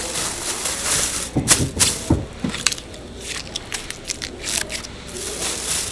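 Thin black plastic carrier bag crinkling and crackling as a packed food container is slipped into it and the handles are gathered, with irregular sharp crackles that are densest in the first half.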